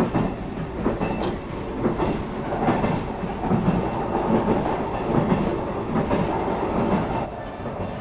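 Running noise of a JR 381-series limited express electric train heard from inside the car: a steady rumble of the wheels on the track, with a loose clickety-clack of thumps.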